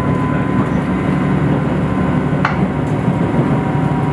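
JR Shikoku tilting diesel limited express train heard from inside the passenger cabin as it runs along the track: a steady low engine drone under rolling wheel-on-rail noise. A single sharp click comes about two and a half seconds in.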